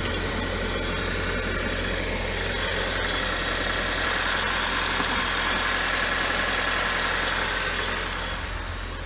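2007 Audi A4 2.0-litre turbocharged four-cylinder engine idling steadily, running again after water-damaged relays under the ECM were replaced. It gets a little quieter near the end.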